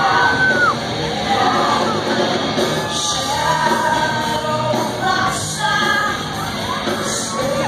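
A live band playing with a woman singing, in a concert-hall recording.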